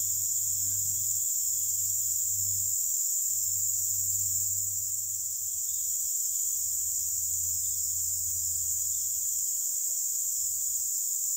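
A continuous, even, high-pitched insect drone, with a steady low hum underneath.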